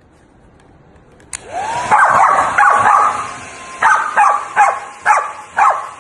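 Corgi barking in high, sharp barks: a rising cry about a second in, then a quick run of barks and about five more, roughly half a second apart.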